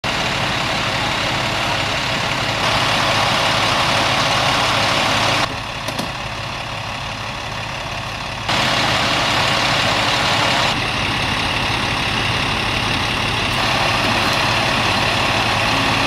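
Idling fire and rescue truck engines: a steady diesel rumble under a broad hiss, dropping quieter for about three seconds near the middle.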